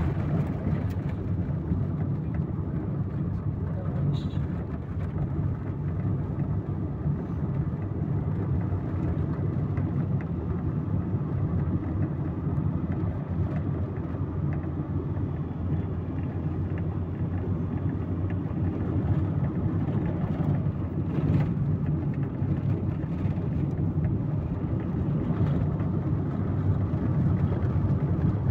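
Steady low drone of road and engine noise inside a moving vehicle's cabin.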